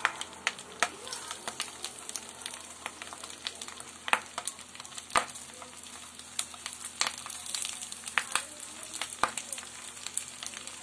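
Mustard oil sizzling in a hot non-stick wok as banana-leaf parcels are laid into it, with sharp, irregular crackles and pops throughout.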